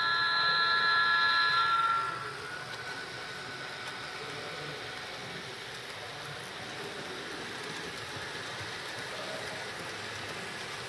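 Multi-tone train air horn from a model diesel locomotive, held steady on one chord and cutting off about two seconds in, followed by steady background hiss.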